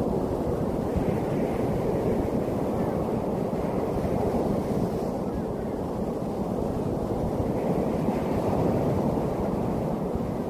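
Sea waves breaking and washing on the shore: a continuous rushing surf that swells gently now and then.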